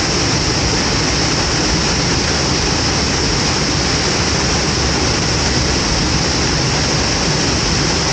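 A large waterfall crashing down close by: a loud, steady rushing of falling water.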